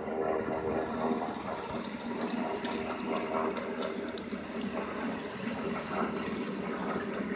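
Army helicopter's rotor and turbine noise, a steady dense whir with a hum running through it, as the helicopter climbs away from a low hover.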